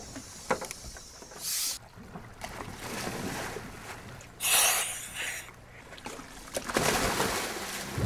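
Water splashing and rushing around a moving boat, coming in several loud surges, with a faint low engine hum in the middle.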